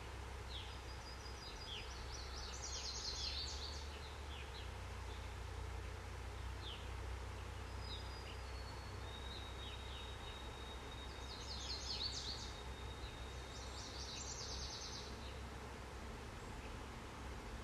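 Songbirds singing: short rapid trills that come every few seconds, scattered chirps and a thin high whistle held for a few seconds, over a steady low rumble.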